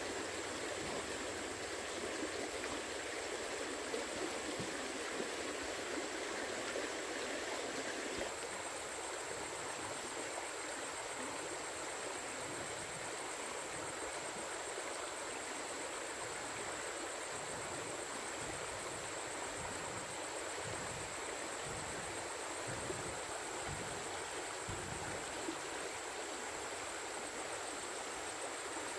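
Steady rushing of flowing water, like a stream, under a constant thin high-pitched whine.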